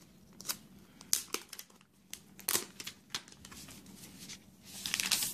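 Thin plastic wrap crinkling as it is handled, with scattered sharp crackles and small clicks and a short rustle near the end.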